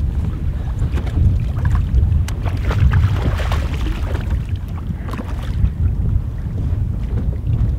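Wind buffeting the microphone, a heavy low rumble, with choppy water slapping against a boat's hull.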